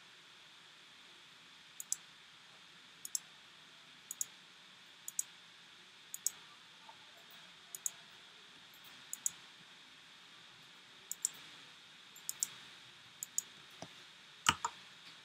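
Computer mouse clicks, about a dozen over the stretch at roughly one a second, each a quick double tick of button press and release, over a faint steady hiss. Near the end comes one louder click with a low thump.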